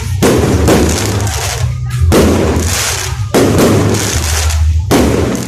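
Fireworks going off in quick succession: loud bangs every one to two seconds, each trailing off into crackle, over a constant low rumble.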